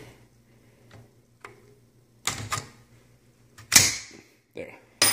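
AR-15 bolt carrier eased forward by hand and clacking shut over an IMI Defense magazine: a few light metallic clicks, a sharper clack about three and a half seconds in, and a ringing metal click at the end. The bolt is stiff to close on this magazine, which the owner puts down to too much tension on the buffer spring and the IMI magazine spring.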